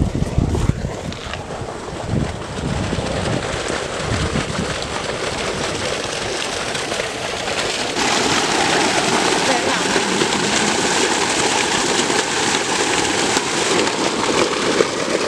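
Wind buffeting the microphone, then, about halfway through, a steady rush of water pouring from a plastic pipe into a metal pot of raw chicken pieces as they are washed.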